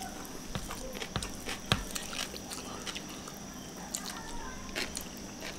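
Close-up chewing and mouth sounds of two people eating rice and fish with their fingers, with scattered sharp clicks and smacks. The loudest comes about a second and three-quarters in.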